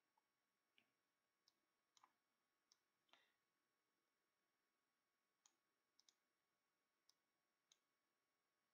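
Faint, scattered computer mouse clicks, about ten of them, some in quick pairs, over near silence.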